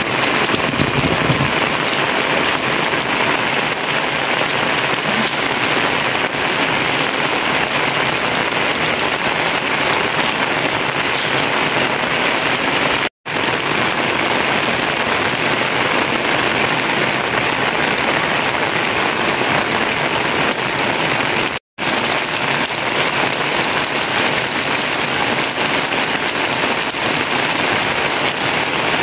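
Steady rain falling on roofs and wet ground, an even rushing patter, cut off for a moment twice, about thirteen and twenty-two seconds in.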